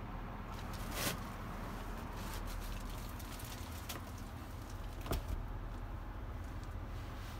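Low steady hum inside a pickup truck's cab, with soft clicks and rustles of a hand-held phone being moved around. There are two brief, louder sharp sounds, one about a second in and one about five seconds in.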